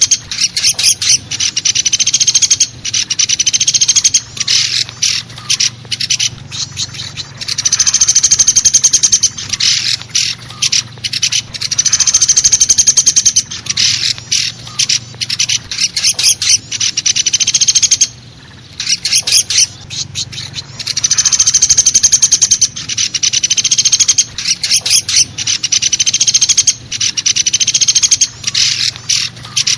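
Woodpecker calls from a bird-lure recording: loud, fast rattling trills in runs of a second or two, alternating with shorter bursts of notes, over a low steady hum.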